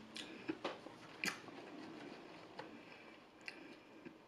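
A person chewing food close to the microphone, with about half a dozen short, sharp mouth clicks and crunches spread across a few seconds.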